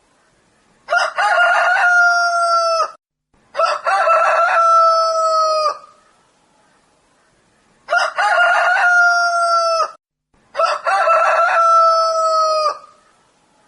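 Rooster crowing four times, in two pairs. Each crow lasts about two seconds: a broken start that runs into a long held note, dropping slightly at the end.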